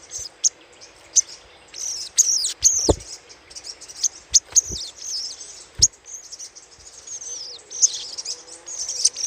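Crimson sunbird (sogok ontong) chattering: clusters of rapid, high, sharp chirps that sweep downward, coming in quick bursts with short gaps. A few brief knocks are heard in the middle.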